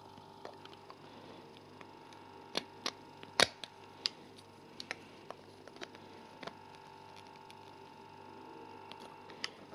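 Plastic construction bricks clicking as a small brick-built vehicle is pulled apart by hand: scattered light clicks, the loudest about three and a half seconds in, over a faint steady hum.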